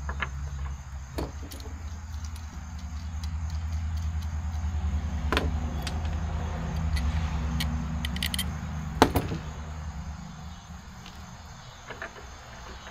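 Low, steady hum of a vehicle engine that swells and then fades. Over it, a few sharp clicks and knocks of plastic and metal parts being handled and fitted into a boat's gunwale track, the loudest about nine seconds in.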